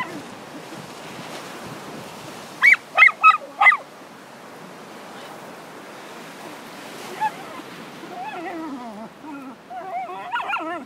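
A dog barks four times in quick succession, loud and sharp, about three seconds in, over a steady wash of surf and wind. Near the end comes a run of wavering, whining cries.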